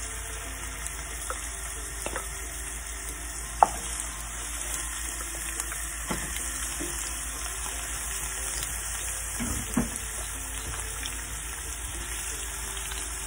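Chunks of beef searing in very hot ghee in a frying pan: a steady sizzle, with a few sharp knocks of the wooden spoon and bowl against the pan, the loudest about three and a half seconds in.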